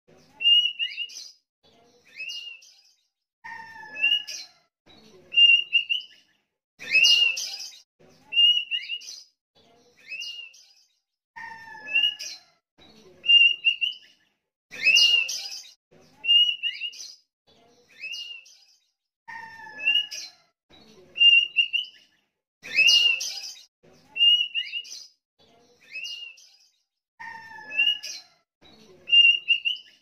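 Sooty-headed bulbul (kutilang) singing: short whistled chirps follow one another steadily, with a louder phrase about every four seconds, and the whole sequence repeats about every eight seconds.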